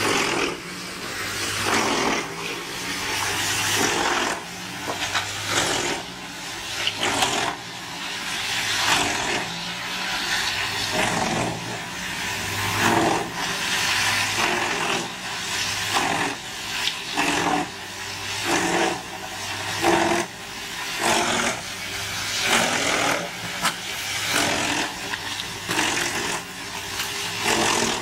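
Large wood chipper running and chipping wood: a steady engine hum under loud, repeated surges of grinding and crunching every second or two as material goes through the cutters.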